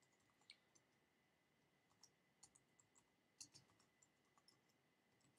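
Faint, scattered keystrokes on a computer keyboard as text is typed into form fields, coming in small irregular clusters.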